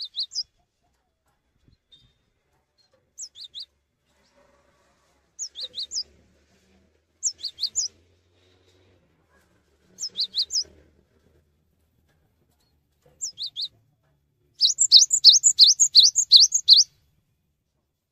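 Cinereous tit (gelatik batu) singing: short phrases of two to four sharp, high whistled notes, each dropping in pitch, repeated every two to three seconds. Near the end comes a louder, rapid run of about a dozen notes.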